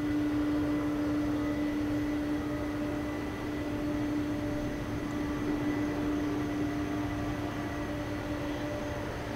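Boeing KC-46 Pegasus tanker's twin Pratt & Whitney PW4062 turbofans running at idle as the aircraft taxis. A steady hum with a constant low tone.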